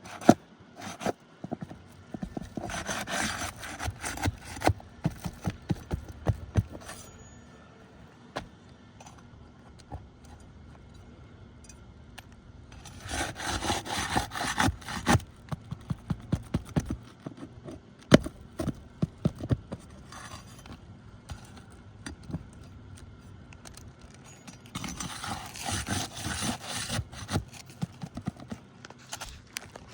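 A prying tool scraping under roof shingles in three rough stretches, with many sharp knocks and clicks between them as shingle nails are worked loose. The loudest knock comes about 18 seconds in.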